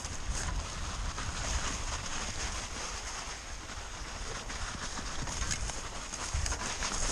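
Mountain bike riding down a snowy trail: tyres running through snow and the bike rattling with scattered knocks over bumps, with wind rumbling on the microphone.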